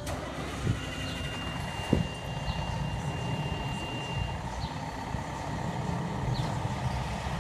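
Low, steady rumble of fire apparatus diesel engines idling in the firehouse bays, growing slightly louder near the end. About a second in, a steady high tone sounds for about three seconds.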